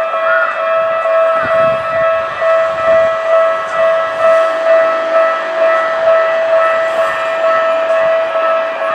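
Japanese railway level-crossing warning bell ringing: a steady electronic ding repeating at an even pace of roughly one and a half strikes a second, signalling that a train is approaching.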